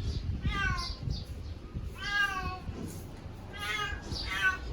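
Domestic cat meowing four times, the second meow the longest.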